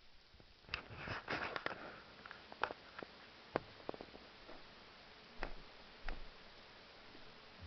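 Handling noise from a camera being moved and set in place: a cluster of rustles and clicks in the first two seconds, then about five separate sharp clicks and knocks, the last two with a low thud.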